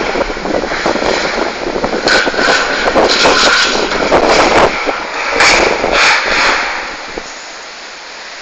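Loud, gusty roar of storm wind from a waterspout, swelling and easing in surges and dying down about seven seconds in.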